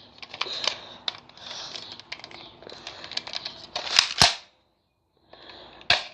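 Hands handling small plastic gear: light rustling with scattered sharp clicks, the loudest a pair of clicks about four seconds in and another near the end.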